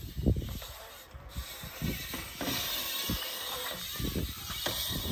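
BMX bike riding on concrete skate-park ramps: tyres rolling and rubbing over the concrete, with the rear hub's freewheel ticking and a few knocks from the bike.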